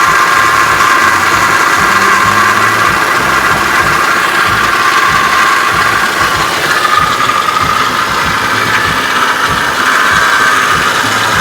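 2004 Cadillac CTS 3.6L V6 engine running at idle with a loud, nasty whine over the engine sound; the whine shifts a little in pitch about halfway through.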